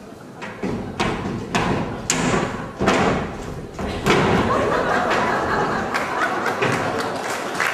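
A run of sharp thumps and knocks on a theatre stage, then audience applause starting about four seconds in.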